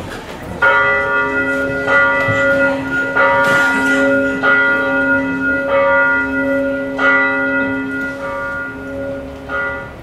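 Church bells ringing, a new stroke about every second and a quarter, each ringing on over a steady hum.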